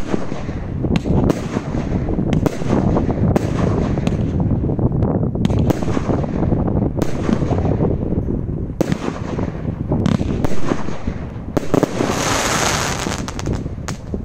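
Detonator 37-shot 1.3G firework cake firing: a loud string of launch thumps and aerial bursts, about one or two a second, over a continuous rumble. A hiss rises near the end before the barrage tails off.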